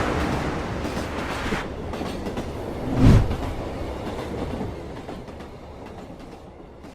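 Train running on the rails, a steady rumble and clatter with a heavy low thump about three seconds in, fading away toward the end.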